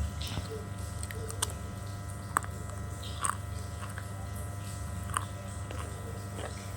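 A person biting and chewing crunchy pieces of slate close to the microphone, with a handful of sharp crunches spread through the chewing.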